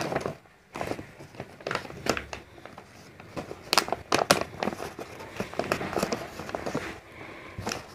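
Paper crinkling and rustling with a run of sharp clicks and crackles: a plastic debit card being peeled off the paper card carrier it is glued to and handled against the paper.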